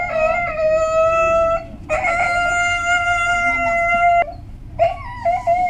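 Siberian husky howling during a mating: three long, steady, high cries, each held for a second and a half to two seconds, with brief breaks between them.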